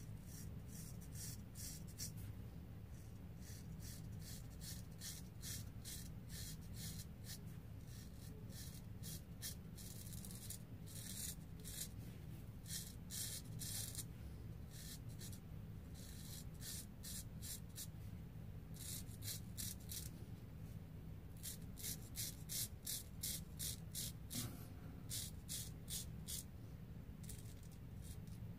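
Straight razor scraping through lathered beard stubble in short strokes, a dry rasp of about four strokes a second, in runs with brief pauses between them.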